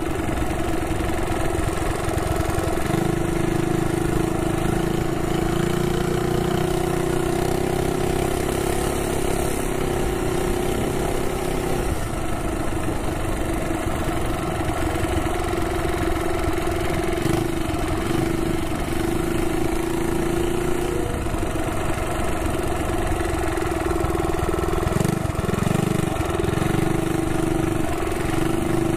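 The Ghost 212cc single-cylinder engine of a minibike, running steadily while the bike is ridden at moderate speed. Its note dips and picks up a little a few times as the throttle is eased and reopened.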